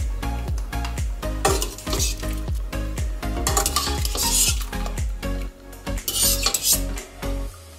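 Background music with a steady beat, over three bursts of a metal slotted spoon scraping in a steel pot of cooking water as cooked fusilli is scooped out and dropped into a second steel pot. The music stops near the end.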